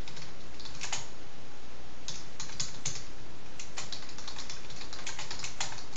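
Typing on a computer keyboard: a few keystrokes, a pause of about a second, then a quick, irregular run of keystrokes, over a steady background hiss.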